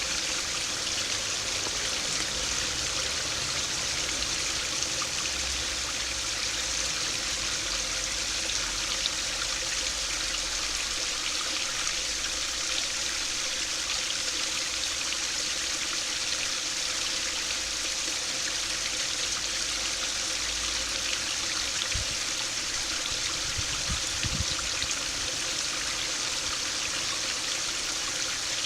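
A stream or small river running steadily over rocks, an even rushing and trickling of flowing water.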